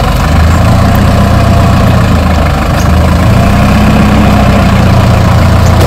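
Diesel minibus engine idling close by, loud and steady, its revs rising slightly around the middle.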